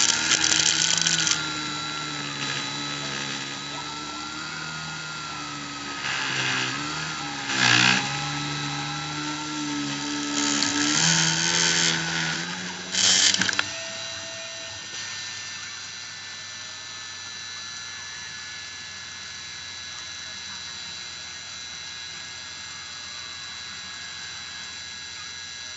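Dremel rotary tool spinning as the spindle of a Cyclone PCB CNC machine, its whine shifting in pitch as the machine moves, with several harsh bursts as the bit cuts into acrylic. A little past halfway the cutting and motor sounds stop, leaving a faint steady hum.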